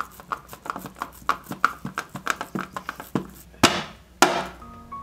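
Wet slapping of raw meat: a rapid, slightly uneven run of smacks about six a second, then two louder, sharper slaps about half a second apart near the end.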